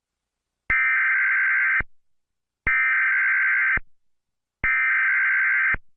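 Emergency Alert System digital data bursts (SAME tones): three buzzing bursts, each about a second long, spaced about a second apart.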